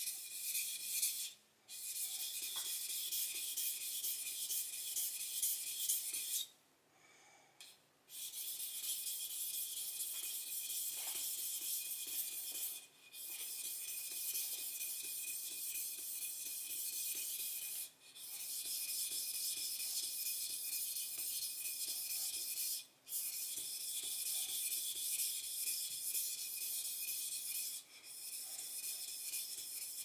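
Kitchen knife blade being stroked back and forth on a whetstone: a steady, high scraping hiss. It is broken by brief gaps about every five seconds, the longest lasting about a second and a half around seven seconds in.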